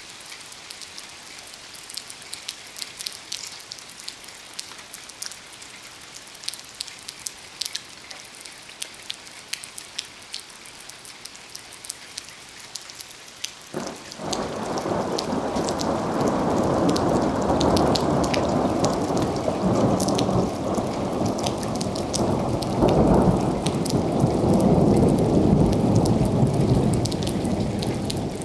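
Rain pattering with scattered drops. About fourteen seconds in, a sudden thunderclap breaks into a long, loud rumble of thunder that swells to its loudest near the end.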